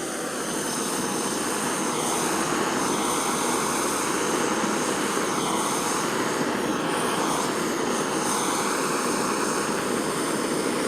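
Large gas soldering torch lit and burning with a steady roar, heating a silver setting and back plate up to soldering temperature. The roar starts suddenly at the outset and holds even.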